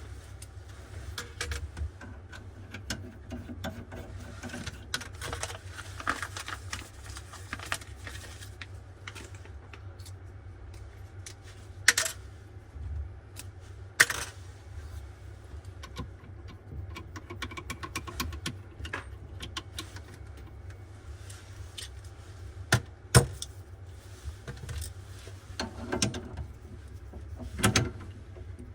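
Tools and small metal parts clinking and tapping irregularly during faucet replacement work, with a few sharper knocks, over a steady low hum.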